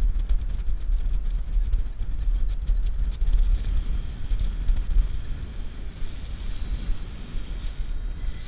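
Wind buffeting the microphone of a paraglider pilot's own camera in flight: a steady low rumble that surges and eases.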